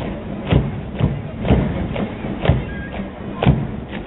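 Soldiers marching in step on asphalt, boots striking in a steady rhythm about twice a second, with a heavier beat once a second.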